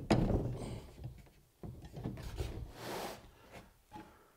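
Handling noises from a track saw rail and its parallel guide stops being adjusted on a plywood-topped bench: a knock at the start, then several bouts of sliding and rubbing with light knocks.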